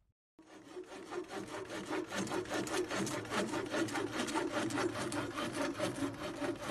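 Rapid, rhythmic scraping strokes, about five a second, with a steady low tone underneath.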